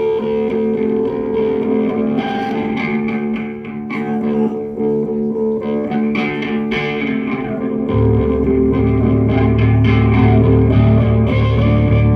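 Live band music led by guitar with sustained, effects-laden notes; a deep bass comes in about eight seconds in and the music gets louder.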